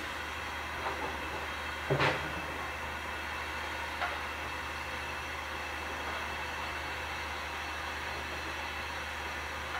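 Hunslet Austerity 0-6-0 steam locomotive standing at a station platform with a steady hiss. A single sharp knock comes about two seconds in, with lighter clicks around it.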